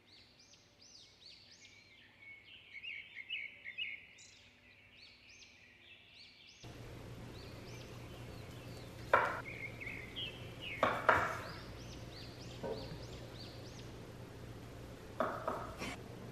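Small birds chirping over and over in the background. From about halfway, a chef's knife cuts through tortilla roll-ups onto a wooden cutting board: four sharp cuts, one to two seconds apart, louder than the birdsong.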